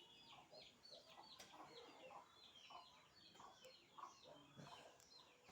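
Faint chickens clucking, with a steady run of short, high, falling peeps.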